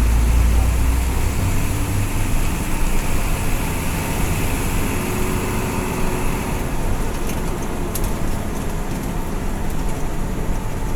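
Intercity bus on the move along a highway: steady engine and road noise, with a deep engine rumble that drops away about a second and a half in.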